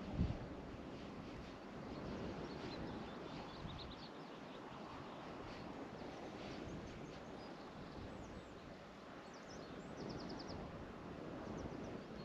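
Steady outdoor background noise by a loch, with faint short chirps of small birds now and then and a brief low thump just after the start.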